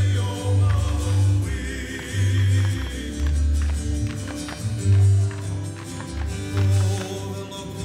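Hawaiian hula song: a singing voice over deep drum beats about once a second, with sharp percussive clicks between them.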